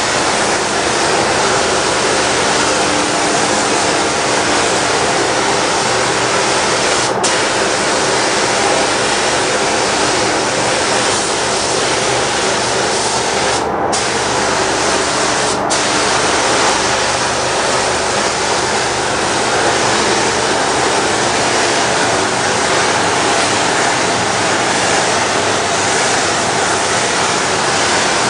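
Gravity-feed paint spray gun hissing steadily as compressed air atomises clear coat onto a plastic bumper. The spray stops briefly where the trigger is let off, about a quarter of the way in and twice near the middle.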